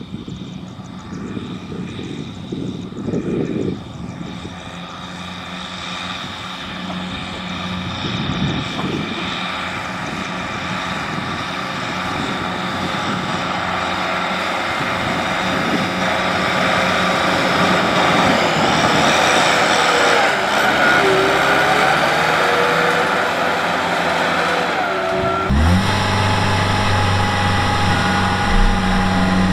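Diesel engine of farm machinery running, growing gradually louder. About 26 seconds in, the sound changes abruptly to a steadier, deeper engine hum.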